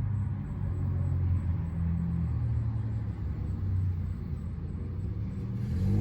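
A car engine running nearby: a low, steady rumble whose pitch drifts slightly.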